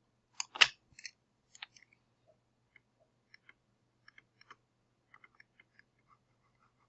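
Scattered faint clicks from a computer pointing device worked during digital painting, with a louder sharp click about half a second in and a few more near one second.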